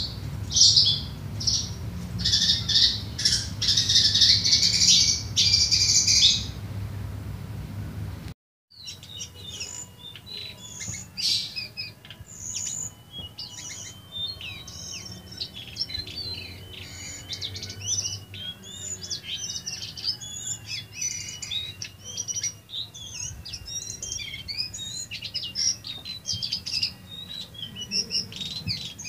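Caged lesser shortwing (cingcoang coklat) singing: a busy run of high, sharp chirps that breaks off briefly about eight seconds in, then a long stretch of rapid, varied twittering notes over a thin, held whistle.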